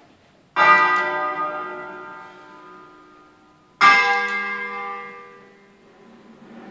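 Church bells from an eight-bell set tuned to D-flat, cast by D'Adda in 1954, struck twice about three seconds apart. Each stroke rings out and slowly dies away. Heard from inside the sacristy.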